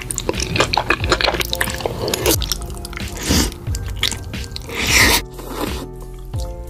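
Creamy pasta being slurped and chewed: wet, squishy mouth sounds and small clicks, with a couple of louder slurps in the second half.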